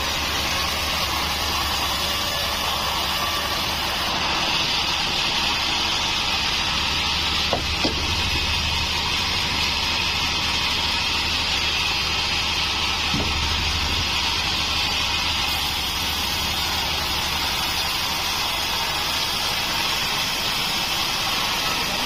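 Band sawmill blade running through a beam of wadang (bayur) wood: a steady high rushing noise over the machine's low hum, with two brief squeaks midway.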